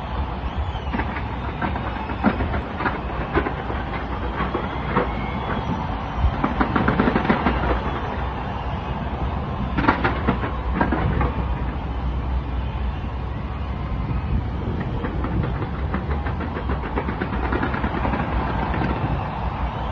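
Fireworks going off in quick succession: a continuous low rumble of bursts with many sharp bangs and crackles on top, thickest about six to eight seconds in and again around ten seconds.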